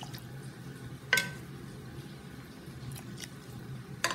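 A metal ladle clinks once against a clay mortar about a second in, as pla ra broth is spooned into pounded fish-and-chili paste, with faint wet squishes and a few soft clicks after. A louder clatter of utensils on the mortar comes right at the end, over a low steady hum.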